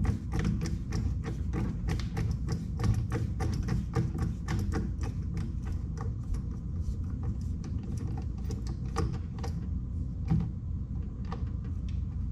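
Screwdriver working a screw out of a microwave door panel: a quick run of small clicks, several a second, that thins to scattered clicks after about eight seconds.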